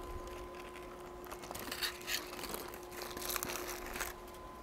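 Aluminium foil being peeled and crinkled off a grilled bread dumpling roll: a run of irregular rustling crackles that stops about four seconds in.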